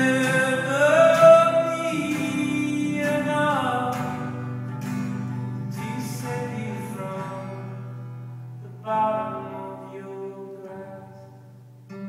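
A man singing long, wordless held notes over acoustic guitar in a live solo song. The voice slides upward about a second in, then fades away, and a new guitar strum comes in about three quarters of the way through.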